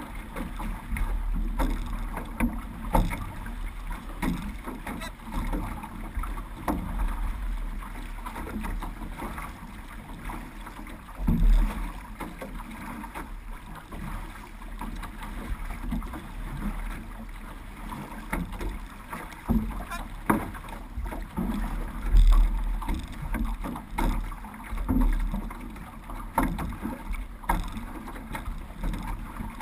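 Paddles of a six-person outrigger canoe dipping and pulling through the water in a steady rhythm, with water washing past the hull and outrigger float and low rumbling wind on the microphone.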